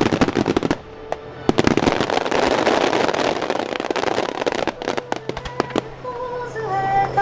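Starmine fireworks barrage: rapid reports of aerial shells bursting, with a dense stretch of crackling in the first half that thins out later. Music with sustained notes comes up near the end.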